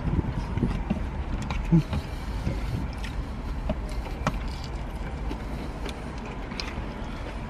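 Eating and handling of takeout food: scattered small clicks and crinkles of paper wrappers and containers, with a sharper knock about two seconds in, over a steady low rumble.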